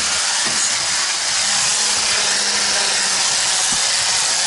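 Electric stick blender with a whisk attachment running steadily, whisking a thick egg-yolk and mascarpone cream in an enamel pot: a steady motor hum under a whirring hiss.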